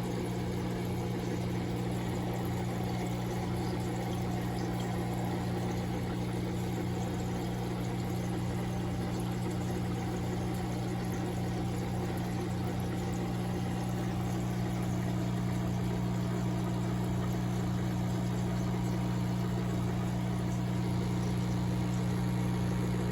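Aquarium filter pump running with a steady low hum, over the constant splash and trickle of water returning into the tank.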